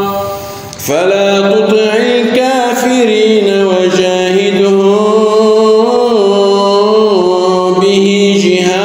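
A man reciting the Quran in a melodic, drawn-out tajweed style, holding long notes that bend slowly up and down. He pauses briefly just after the start and comes back in about a second in with a rising note.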